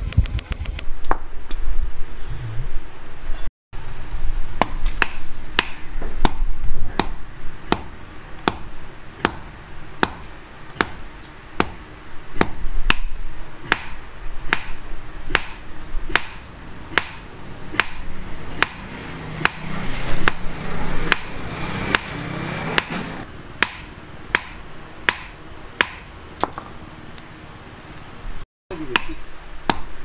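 Blacksmith's hand hammer striking a red-hot steel knife blank, forged from bearing steel, on an anvil block. The blows come steadily, about two a second, each with a short metallic ring.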